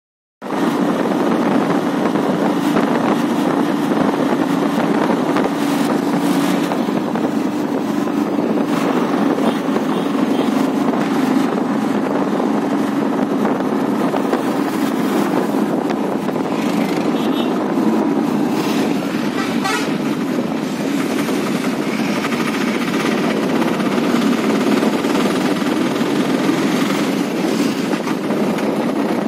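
Steady engine and road noise of a moving vehicle heard from inside it, starting abruptly about half a second in, with a few short horn toots from traffic in the second half.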